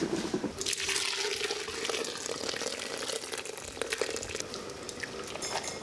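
Liquid pouring and splashing into a glass blender jug as it fills, with a few light knocks near the end.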